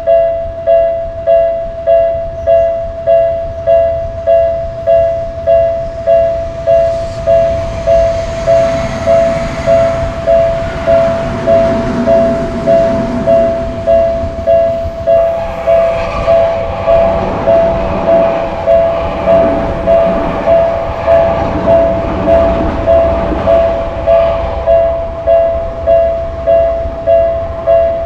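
Japanese level-crossing alarm ringing without pause, an evenly repeated two-tone ding a little faster than once a second. Train noise from passing wheels and motors swells twice over it, about a quarter of the way in and again, louder, just after the middle.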